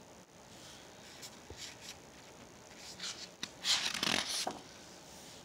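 A page of a picture book turned by hand: faint paper rustling about three seconds in, then a louder swish of the page in the second half.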